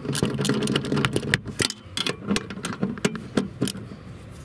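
Ratchet and socket on a short extension undoing tight 12 mm bolts: a run of irregular sharp metallic clicks and knocks, over a low steady hum.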